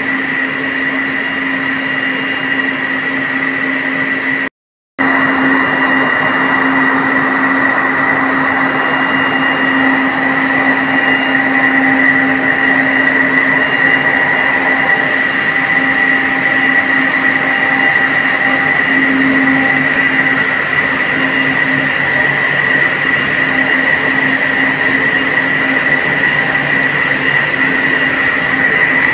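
Lohia LOREX 1400HS plastic tape extrusion line running: a loud, steady machine hum with a high steady whine over it. The sound drops out completely for about half a second some four and a half seconds in.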